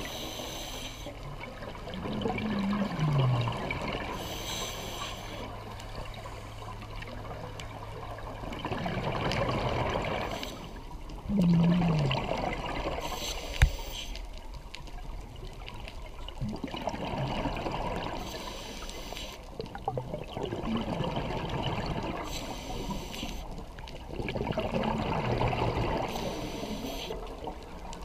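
Scuba diver breathing through a regulator underwater: a short hiss on each inhale, then a longer bubbly gurgle as the exhaled air escapes, several breaths over the stretch. A single sharp click about halfway through.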